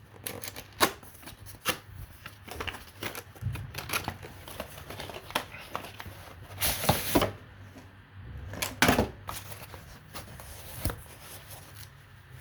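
A product box and its packing being opened by hand: scattered clicks and knocks of handled packaging, with two longer rustling, tearing-like bursts about seven and nine seconds in.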